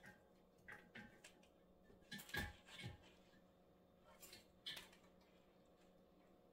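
Dry bare branches rustling and scraping against the rim of a ceramic vase as they are handled and set in place: a scatter of soft clicks and rustles, the loudest about two and a half seconds in, over a faint steady room hum.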